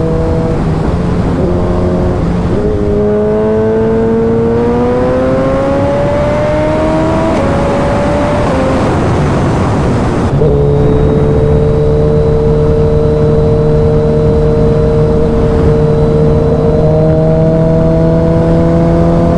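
Suzuki Hayabusa's inline-four through a Brock's Alien Head 2 exhaust, accelerating with a rising pitch for several seconds, easing off and shifting around halfway, then running louder and steadier, with a small rise near the end.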